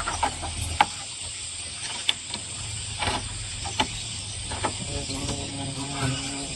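Steady rain hiss with a handful of scattered sharp knocks.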